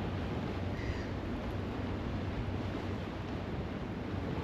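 Wind rumbling on the microphone over surf on the shore, with a short bird call about a second in.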